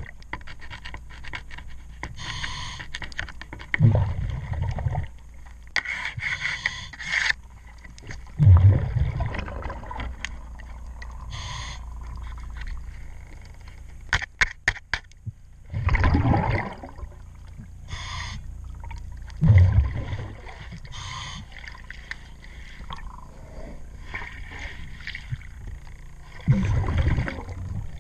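Scuba diver's regulator breathing underwater: a hissing inhale, then a bubbling exhale every few seconds. Between breaths a hand scraper scrapes and clicks against the boat's underwater fittings, loudest in a run of sharp clicks about halfway through.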